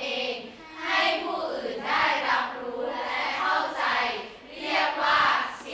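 A classroom of students reading a Thai text aloud in unison, phrase by phrase, with two brief pauses.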